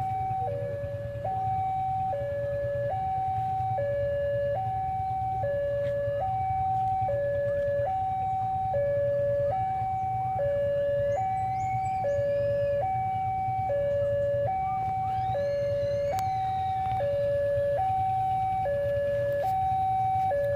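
Railway level-crossing warning alarm sounding a steady two-tone electronic signal, alternating high and low tones about every 0.7 s, the warning that a train is approaching the crossing. Faint bird chirps come in around the middle.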